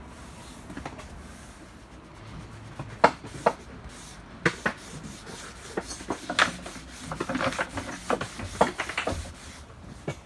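Rubbing on wooden deck planks as a gloved hand works oil into the wood, with scattered sharp knocks and clicks that start about three seconds in and come thickest a little past the middle.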